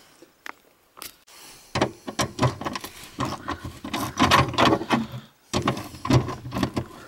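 Hand ratchet wrench clicking in quick, uneven runs as it backs out the small screws of a fuel pump access plate. The ratcheting starts about two seconds in, after a single click.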